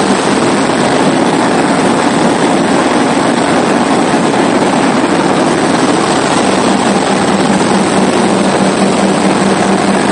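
Steady drone of a C42B ultralight's engine and propeller in flight, heard inside the cabin, mixed with rushing airflow and a constant low hum.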